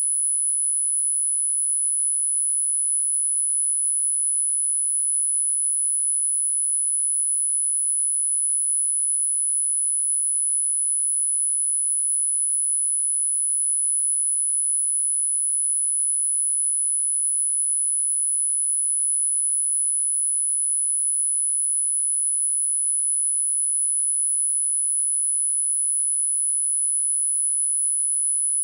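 A steady, very high-pitched electronic sine tone, a single pitch held without change.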